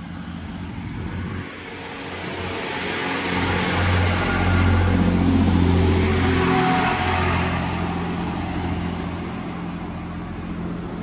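Northern Class 158 diesel multiple unit running past along the platform: diesel engines drumming over wheel-on-rail noise, growing louder to a peak about halfway through as the cars go by, then fading as the train moves away.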